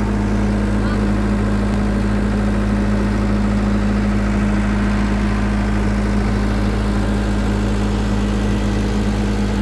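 Komatsu PC130 excavator's diesel engine idling steadily, a constant even drone with a low hum.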